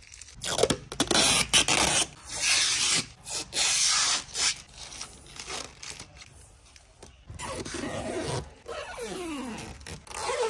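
Protective plastic film being peeled off a car's chrome window trim and front bumper: a series of irregular ripping strokes, some long and some short, with a few short squeaky glides near the end.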